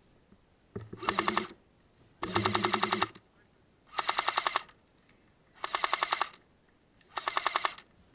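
Airsoft M60 machine gun firing five short bursts of automatic fire, each a rapid rattle of shots lasting under a second, spaced about a second and a half apart.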